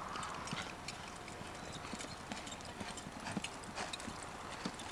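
A ridden horse's hooves beating on soft arena dirt as it moves at speed, a quick, uneven run of dull thuds.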